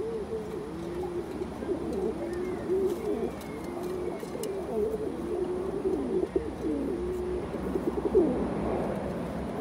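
Domestic pigeons cooing over and over, the low warbling coos overlapping one another, with a few faint clicks between about six and eight seconds in.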